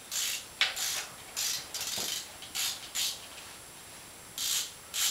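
Socket ratchet wrench clicking in short repeated strokes while a fastener on a dirt bike is worked, with a pause of about a second before the strokes resume.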